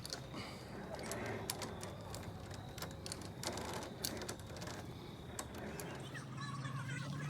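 Irregular light clicks and clinks of climbing gear being handled on a treetop course, with a faint murmur of voices underneath.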